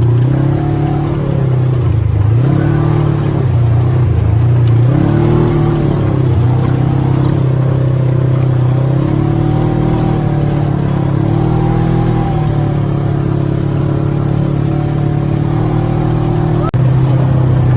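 ATV engine running as it is ridden, its pitch repeatedly dipping and rising with the throttle.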